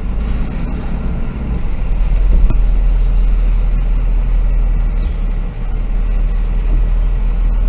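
Low, steady engine and road rumble heard inside the cab of a pickup towing a 48-foot fifth-wheel trailer as it creeps along slowly.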